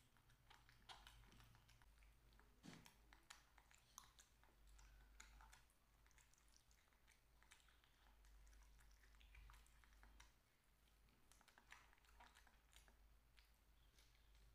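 Faint eating sounds: soft chewing and scattered light clicks and taps of a small fork picking at a cake on a plastic plate, over a low steady hum.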